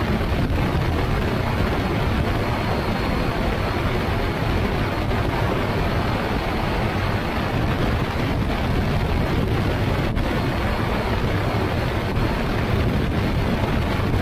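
Ultralight trike's engine and pusher propeller running steadily in cruise flight, mixed with wind rushing over the wing-mounted microphone.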